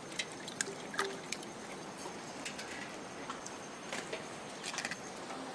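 Faint low cooing of a dove, a couple of short coos about a second in, over a steady background hiss, with scattered light clicks and splashes as wet colocasia leaves are handled in a basin of water.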